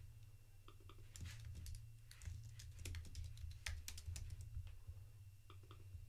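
Computer keyboard typing: irregular, faint keystrokes while code is being edited, over a steady low hum.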